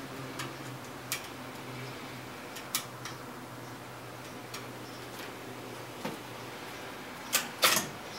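Scattered single sharp clicks and clinks of tools and metal parts as the nuts are undone and the stator core is worked out of a GM 10SI/12SI alternator case, the two loudest near the end.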